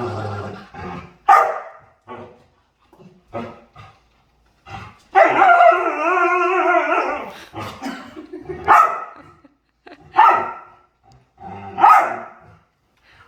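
A dog vocalizing in play: a string of short barks and yips, with one long wavering call of about two seconds starting about five seconds in.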